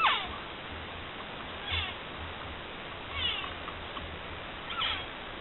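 Elk mewing: four short, high calls that each fall sharply in pitch, about one every one and a half seconds.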